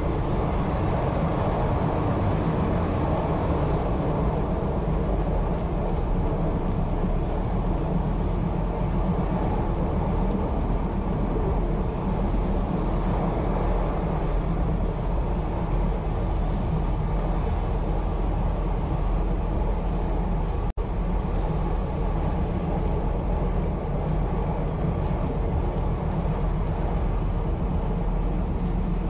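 A 1920s CPH railmotor running steadily along the line, heard from its driver's cab: an even engine note under the rumble of wheels on rail. The sound cuts out for an instant about two-thirds of the way through.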